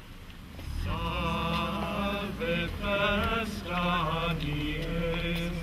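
Chanting: a slow sung melody with wavering pitch over a low held drone note, coming in about a second in.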